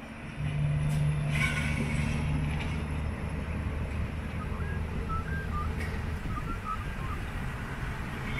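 Heavy truck's diesel engine running steadily and loudly, coming up about half a second in and holding a constant low note.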